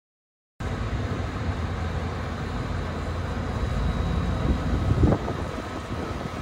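Outdoor night ambience: a steady low rumble of road traffic with wind noise on the microphone. It starts abruptly about half a second in and has a brief louder swell about five seconds in.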